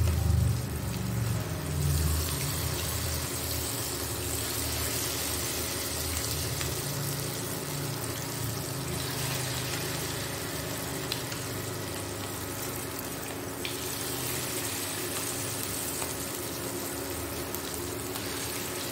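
Battered chicken pakoras deep-frying in hot oil in a pan, with a steady sizzle and bubbling of the oil.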